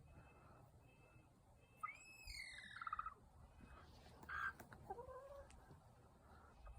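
Chicken vocalizing: a squawk that rises, then falls in pitch and breaks into a rapid trill, then a short scratchy burst and a lower, shorter call.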